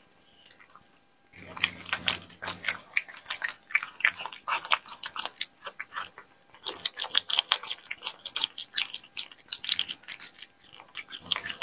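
A cat chewing and biting chunks of raw meat, close-up. Quick, wet clicks and crunches run in dense bursts, starting about a second in.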